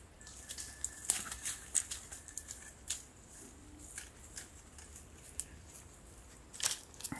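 Dry twigs and fallen leaves crackling and rustling in undergrowth as goats move and browse through the bushes, in scattered irregular snaps.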